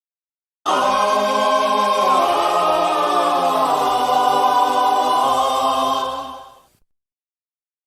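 Choir sound effect: a group of voices singing a held chord. It starts suddenly about a second in, shifts chord once, and fades out near the end.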